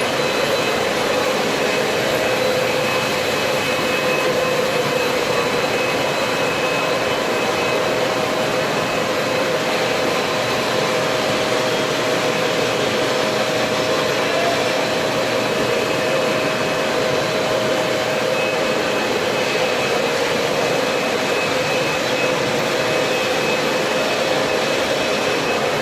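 RS32 ride-on wet floor scrubber running steadily: a constant machine whine with a few steady tones over a rushing noise, unchanging throughout.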